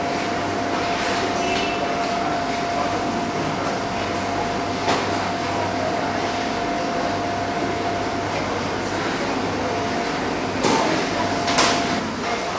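Steady food-factory machinery noise with a constant high hum running through it, and a few short knocks, once about five seconds in and twice near the end.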